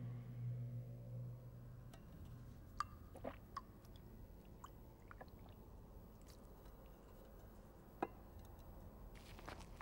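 A creature eating from a bowl: faint wet clicks and smacks of chewing, scattered and sparse at first and coming thicker near the end. A low hum fades out in the first second or two.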